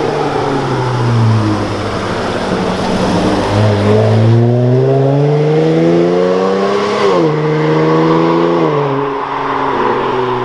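Dodge Charger SE AWD's 3.6-litre V6 engine accelerating along a winding road. Its pitch eases down at first, then climbs steadily for about three seconds, drops sharply about seven seconds in, and drops again near nine seconds.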